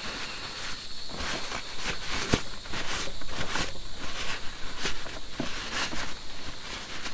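Irregular clicks and light knocks of hand work with tools and metal parts while the sawmill's fuel tank is refitted, over a steady background drone of insects.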